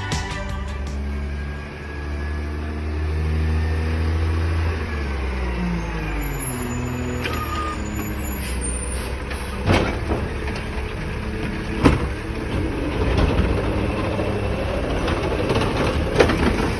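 Crane Carrier LET2 garbage truck with a Pendpac rear-loader body working: its engine note falls and rises, with sharp bangs about ten and twelve seconds in and again near the end.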